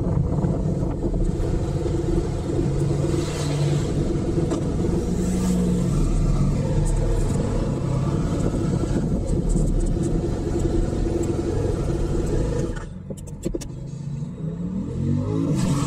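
A motorcycle riding along, its engine running under way with steady wind and road noise. It quietens about three-quarters of the way through, then the engine note rises as the bike accelerates again.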